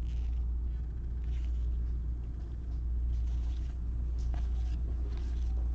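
A steady low rumble, with a few faint rustles and taps of trading cards being handled and flipped through.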